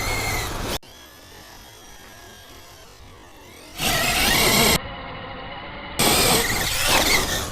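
Short edited snippets of a large electric RC truck's motor whining as it is throttled up and down, in three loud bursts with a quieter stretch between the first two.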